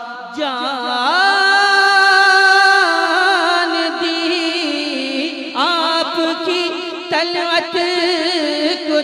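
A man's solo voice singing a naat, stretching out long, heavily ornamented notes with no clear words. A new phrase begins about halfway through.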